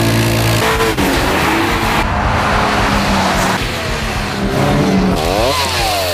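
Car engine running loud and revving, its pitch rising and falling, with a quick rev up and back down near the end.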